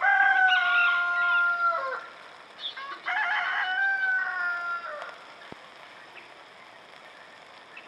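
A rooster crowing twice, about three seconds apart, each crow ending in a long held note that sinks slightly in pitch.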